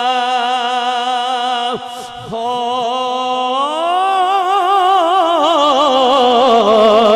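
A man's voice singing a line of Punjabi Sufi verse in the chanted style of a sermon. A long held note breaks off briefly about two seconds in, then a drawn-out phrase glides upward and wavers with heavy vibrato.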